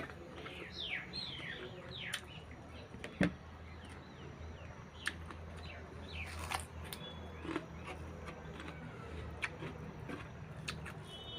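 Small birds chirping now and then in short falling notes, with a few sharp knocks and clicks; the loudest knock comes about three seconds in.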